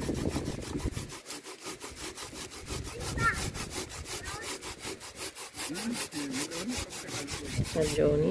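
Food being grated by hand on a metal grater: quick, even rasping strokes.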